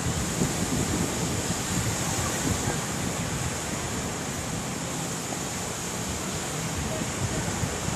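Steady wash of surf breaking on a beach, with wind buffeting the microphone.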